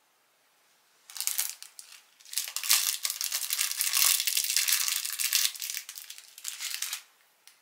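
Crinkling, crackling handling noise made of many fine clicks. It starts about a second in, pauses briefly, then runs densely until it stops near the end.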